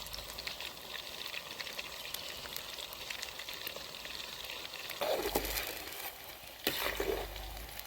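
Food frying in hot oil in a pan, a steady crackling sizzle, with two louder stretches of stirring about five seconds in and near the end.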